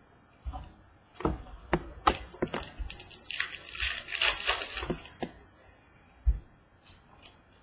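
Trading cards being handled at a table: a run of light clicks and taps, then a second or so of papery rustling as cards slide over one another, a dull tap about six seconds in, and two faint ticks near the end.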